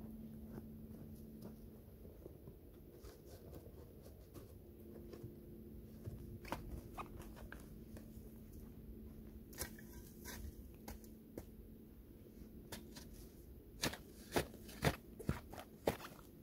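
Shovel digging into snowy earth: scattered scrapes and crunches of the blade in the dirt, then about five sharp chops into the ground in quick succession near the end.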